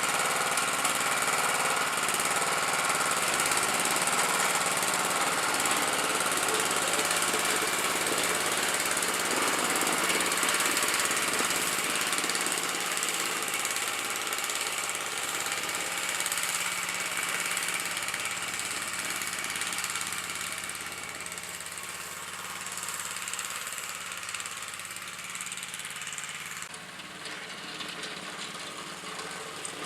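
Snapper riding lawnmower's small engine running steadily while the mower is driven, fitted with a front snow plow. The engine grows somewhat quieter in the second half.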